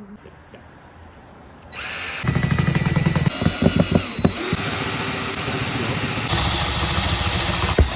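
Power drill running in spells, starting about two seconds in, with a thin high whine and an uneven stretch in the middle, getting louder again near the end before it stops.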